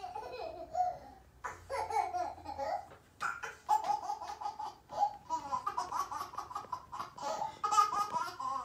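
A baby laughing in short repeated bursts with brief pauses, played through a television's speakers.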